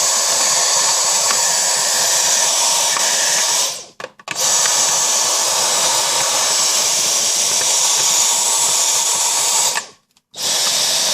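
Dyson cordless vacuum running at a high whine, switched off and on twice so it runs in three stretches, sucking dust out of the inside of a Roomba robot vacuum.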